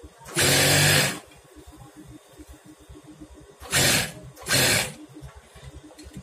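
Industrial sewing machine stitching a trouser hem in three short bursts, the first about a second long and two briefer ones near the middle. A quieter low hum runs between the bursts.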